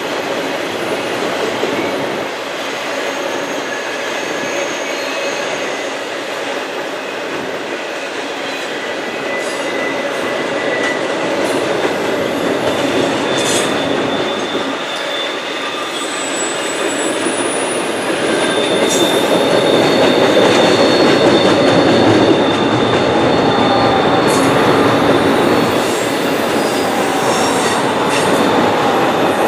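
Intermodal freight cars rolling across a trestle bridge: a steady rumble and rattle of wheels on rail, with thin high wheel squeals. It grows louder about two-thirds of the way through.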